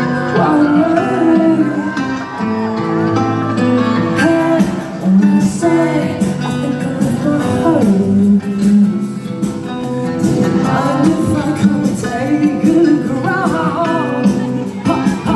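Live pop music: a male voice singing over guitar accompaniment, recorded from the audience at a concert.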